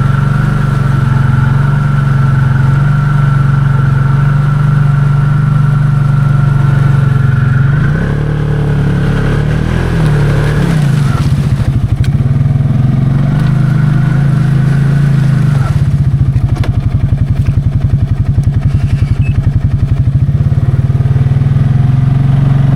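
Can-Am Outlander 700 XMR ATV engine running under load with a steady high whine above it. Its pitch rises and falls about eight to eleven seconds in, and from about sixteen seconds on it settles into a fast, even pulsing as the quad works through a deep, sandy-bottomed hole.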